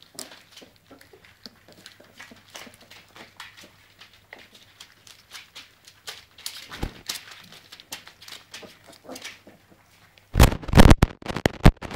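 A litter of Weimaraner puppies eating from bowls and scrambling over newspaper: a run of quick, irregular clicks and paper crinkles. About ten seconds in, a loud, rough scraping noise close to the microphone takes over.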